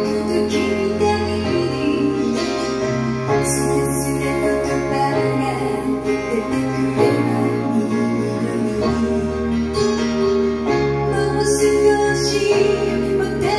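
Live pop-rock band recording with a female lead vocal singing in Japanese, played back through JBL 4344 loudspeakers and re-recorded by a microphone in the room.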